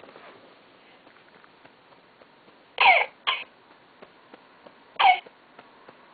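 Infant simulator doll's recorded cough playing: two quick coughs, then a third about two seconds later.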